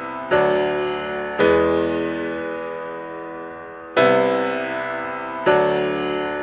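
Background piano music: slow chords, four of them, each struck and left to ring and fade.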